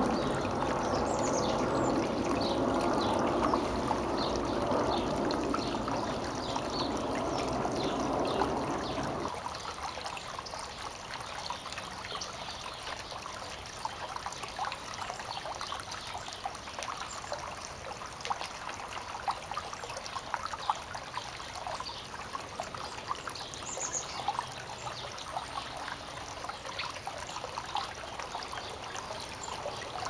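Water trickling and splashing down a stacked-rock garden fountain. About nine seconds in, it drops to a lighter, thinner trickle.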